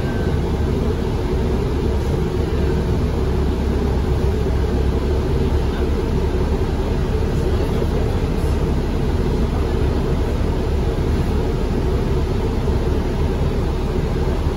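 Steady low rumble inside the cabin of a DC Circulator transit bus as it runs.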